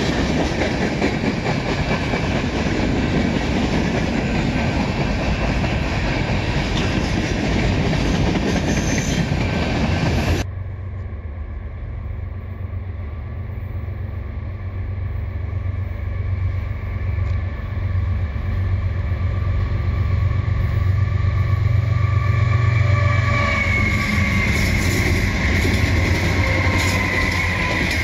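Freight train of tank cars rolling past, with steady wheel-on-rail noise and clickety-clack, until it cuts off abruptly about ten seconds in. Then a diesel freight locomotive's low engine rumble builds as it approaches and passes, and a high steady tone joins near the end.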